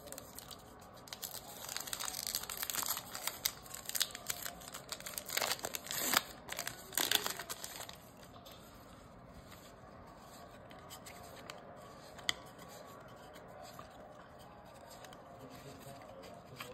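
Trading card pack wrapper being torn open and crinkled: a run of crackling rustles and sharp crinkles lasting several seconds, then only faint handling noise with a single click about twelve seconds in.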